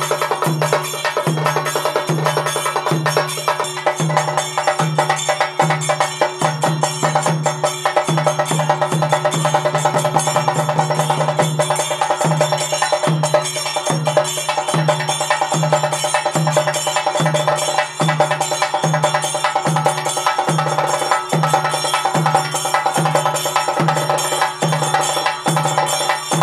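Temple ritual percussion music: a low, pitched beat about one and a half times a second over continuous metallic clanging and ringing of cymbals and bells.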